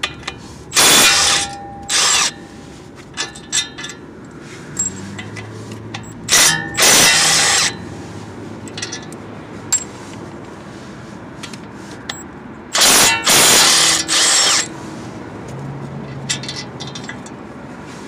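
Milwaukee Fuel brushless cordless impact wrench hammering in several bursts, two short ones and then two longer ones, as it breaks loose and spins out the front wheel hub assembly's 18mm mounting bolts.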